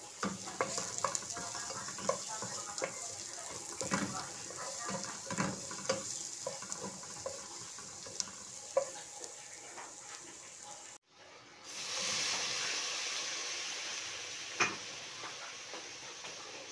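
Onion and garlic sizzling in hot oil in a nonstick wok while a wooden spatula stirs, with many small scrapes and taps against the pan. After a short break about eleven seconds in, a louder, steadier sizzle of diced chicken breast frying, with an occasional spatula knock.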